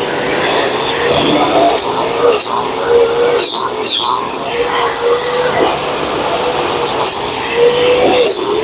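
Electric angle grinder with a wire wheel running against welded steel, cleaning up the weld on a kickstand mount. Its steady whine dips and recovers several times as the wheel is pressed into the metal, over a scratchy brushing noise.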